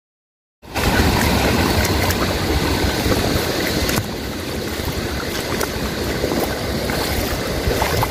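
Steady rush and splashing of shallow river water around a person wading while hauling in a cast net, with wind rumbling on the microphone. It starts abruptly out of silence about half a second in.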